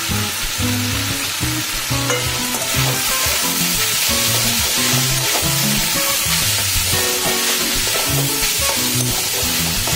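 Chicken and diced-potato filling sizzling in oil in a steel kadai while it is stirred with a metal spatula, which clicks and scrapes against the pan. The filling is being dry-fried (bhuna) with the spices.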